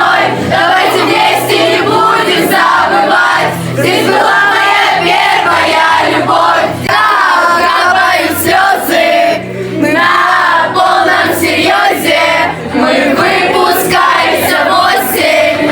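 Music playing loudly with a crowd of voices singing along.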